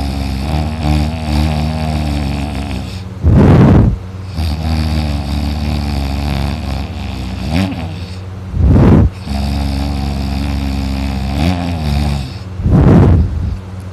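A sleeping man snoring loudly, three harsh snores on the breath in about four and a half seconds apart, with a long, drawn-out moan on each breath out between them.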